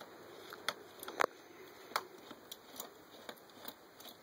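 Clicks and taps of a hand-held Torx driver working the cover screws on a Stihl cut-off saw, a short sharp click every half second or so, the loudest about a second in.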